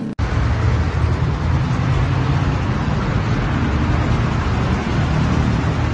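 Loud, steady rumbling street noise with no voices, starting abruptly a moment in.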